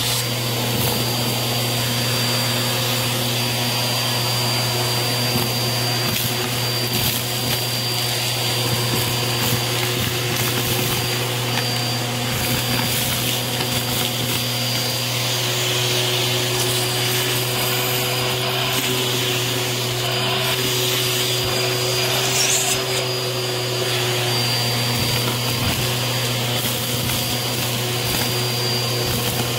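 Bissell vacuum cleaner running steadily through its crevice tool, a steady hum with a high whine over it, sucking up fluff, confetti and gritty dirt. Small debris crunches and rattles up the hose in many quick crackles.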